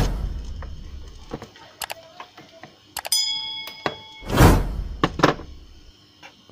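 Subscribe-button animation sound effects: a loud thump with a low boom at the start, a few sharp clicks, a short bell-like chime about three seconds in, then two more swishing thumps.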